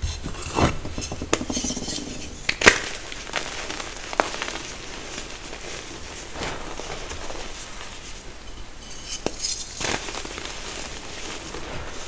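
Hands crushing and squeezing chunks of reformed gym chalk into powder: a crumbly, crunchy grinding with sharp cracks as pieces break, the loudest about two and a half seconds in.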